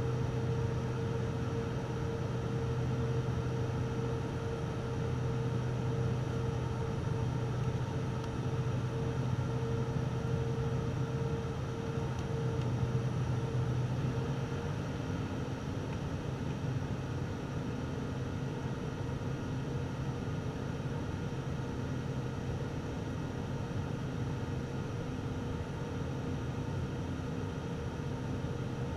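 Steady cabin drone of a turboprop airliner in flight: engine and propeller heard inside the cabin as a low hum with a higher steady tone. About halfway through, the higher tone fades and the drone becomes slightly quieter.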